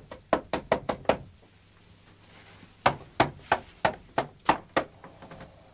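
Knocking on a wooden gate: a quick run of knocks, a pause of nearly two seconds, then a second, slightly slower run of about seven knocks, ending in a few faint taps.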